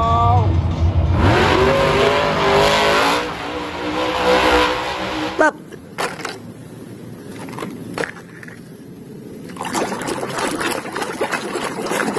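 Monster truck engine revving hard, its pitch sweeping up several times over loud noise, then cutting off suddenly about five seconds in. After that come a few sharp clicks of plastic toys being handled, and near the end water splashing as a toy is scrubbed by hand.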